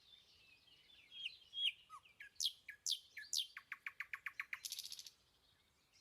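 Faint bird song: scattered chirps and quick downward-sweeping whistles, then a rapid trill of about ten short notes a second, ending in a brief buzzy note.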